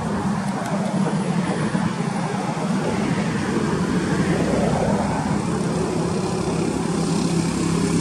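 Steady vehicle-like rumble with a low hum running underneath. It cuts off suddenly near the end.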